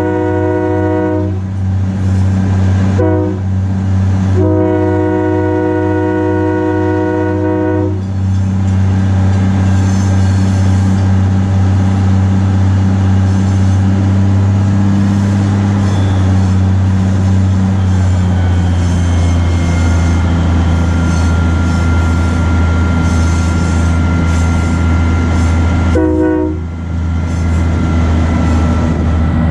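Horn of a 1943 GE 80-ton diesel-electric switcher sounding for a road crossing: a long blast ending about a second in, a short one, then another long one, and one more short toot near the end. Under the horn the locomotive's diesel engine runs steadily.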